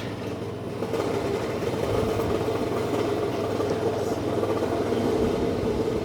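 Steady mechanical hum of engines running, with a constant low drone and no hammering strokes.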